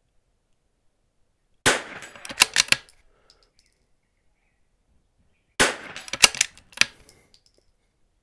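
Two .22LR shots from a Vudoo bolt-action rimfire rifle, about four seconds apart, each followed within a second by a quick run of sharp clicks.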